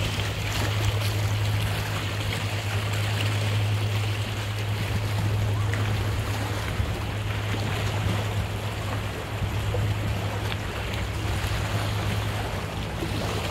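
Lake water lapping and splashing among shoreline boulders, over a steady low hum.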